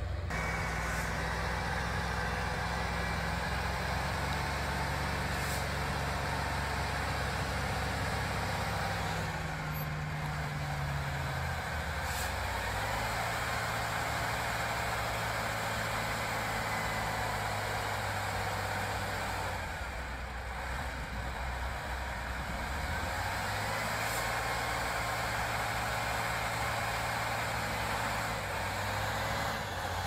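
Engine of a heavy six-wheeled truck loaded with logs, running steadily as it drives through deep mud. The engine note changes pitch about twelve seconds in and eases off briefly around twenty seconds.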